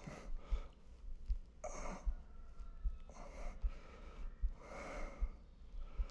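A person's heavy breathing, drawn in and let out in swells every second or two, over a low thump that repeats steadily a little more than once a second.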